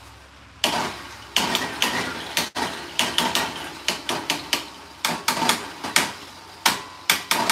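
Repeated sharp metallic strikes on the pump head of a DeWalt D55168 oil-less air compressor, at an uneven pace of about three a second, each with a short ring. The compressor is being banged on to free a jamming piston.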